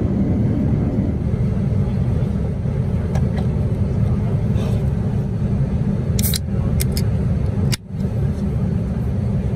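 Steady, low airliner cabin noise inside a Boeing 787-9 in cruise, with a few light clicks about two-thirds of the way through as aluminium drink cans are handled on the plastic tray table. The noise drops out for an instant shortly after the clicks.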